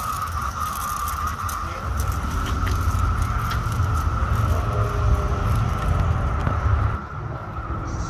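Chorus of periodical cicadas, a steady high drone from many insects at once. Wind and handling noise rumble low on the phone microphone.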